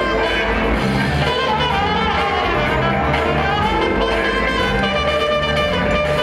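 Loud music with brass lines over a steady low beat, played over an arena sound system for a b-boy battle.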